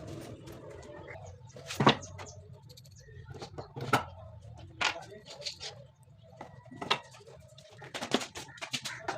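Scattered sharp knocks and taps of tools and parts being handled, about a second or two apart, over a low steady hum.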